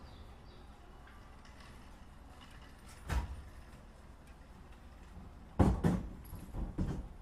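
Sharp knocks inside a Keikyu 1500 series train car over a low steady background: one about three seconds in, then a quick cluster of three or four louder ones near the end.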